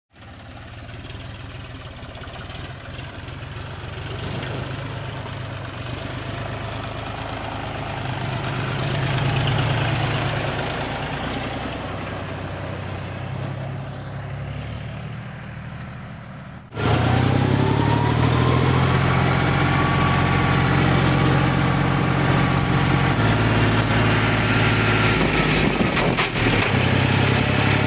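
John Deere tractor's diesel engine running steadily as it tows a trolley. About two thirds of the way through it becomes much louder and closer, heard from on the tractor beside its upright exhaust pipe, and its note rises briefly as it picks up speed.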